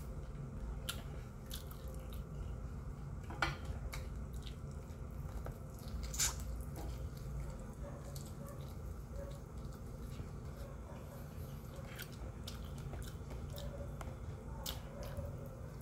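A person chewing a mouthful of fried chicken and rice, with scattered small wet mouth clicks and two sharper clicks a few seconds in, over a steady low background hum.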